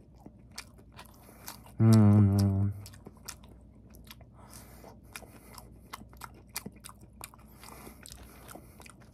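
Close-up chewing and biting of charred pan-fried sausage pancake, with many short sharp mouth clicks and smacks. About two seconds in comes a low hummed "mmm" lasting just under a second, the loudest sound.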